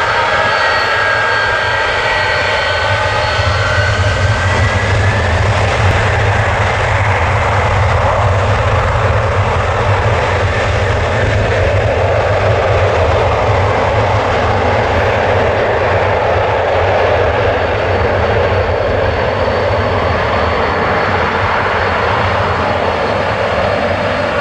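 Airbus A330's twin jet engines spooling up to takeoff thrust: a rising whine in the first few seconds over a loud roar, which then holds steady as the airliner rolls away down the runway.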